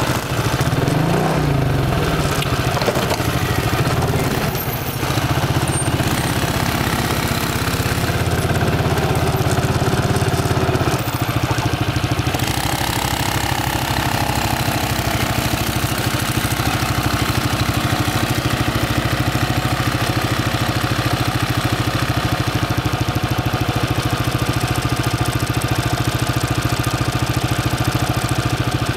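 ATV engine idling steadily close to the microphone, an even rapid throb. In the first seconds an engine's pitch rises and falls briefly as it is revved.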